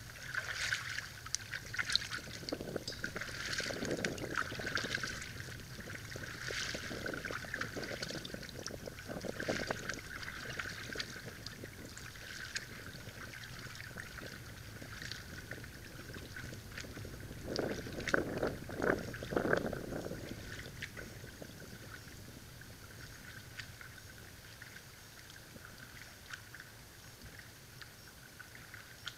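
Lake water lapping and splashing close to the microphone, with canoe paddle strokes in the first few seconds while the canoe is still near. There is a louder run of splashes about eighteen to twenty seconds in, and the sound then eases off and grows fainter toward the end.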